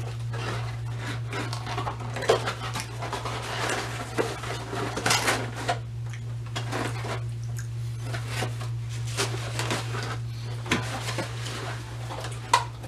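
Cardboard pizza boxes being opened, closed and shuffled: scattered scrapes, taps and rustles of varying loudness, over a steady low hum.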